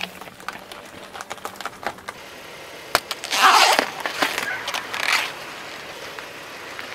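Car tyre rolling onto a whole watermelon: light crackling under the tyre, then a sharp crack about three seconds in as the rind splits, followed by a loud crunching of the rind and flesh for under a second, with two smaller crunches about a second and two seconds later.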